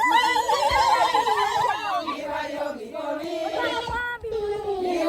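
A crowd singing together in welcome. A high, rapidly trilling voice, like an ululation, rides over them for about the first two seconds, then several voices carry on singing.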